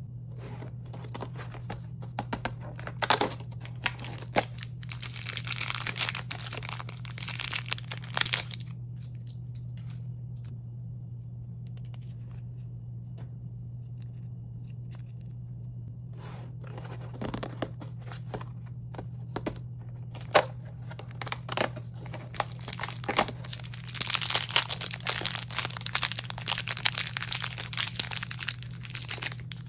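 Crinkly plastic blind-bag wrappers of mini figures being crumpled and torn open by hand. This comes in two spells, a few seconds in and again near the end, with small taps and clicks of handling between them.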